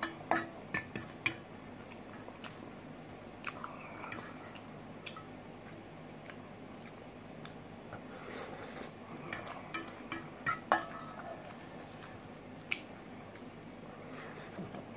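Chewing salad, with a metal fork clinking and scraping against a stainless steel mixing bowl now and then, most often in a cluster of clinks around ten seconds in.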